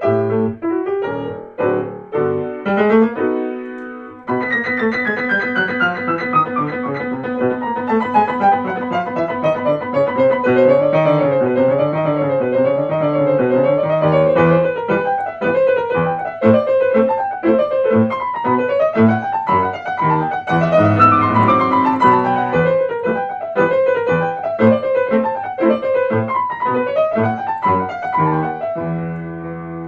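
Piano playing a flowing piece full of rapid rising and falling runs of notes, with a brief lull about four seconds in.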